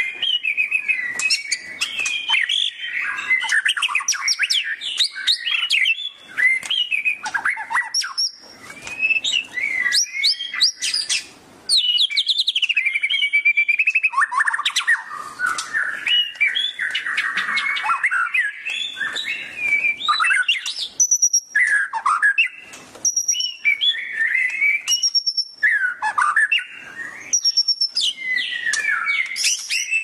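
White-rumped shama (murai batu) singing a long, varied song of fast trills, chattering runs and clear whistles, with two short pauses early on and a run of repeated high whistled notes later.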